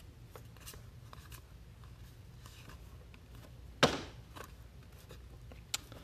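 Trading cards being handled and sorted, with faint rustles and small clicks, a sharp tap about four seconds in and a smaller one near the end, over a low steady hum.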